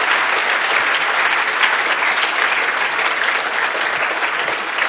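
Audience applauding steadily: a lecture-hall crowd clapping at the end of a talk, easing off slightly near the end.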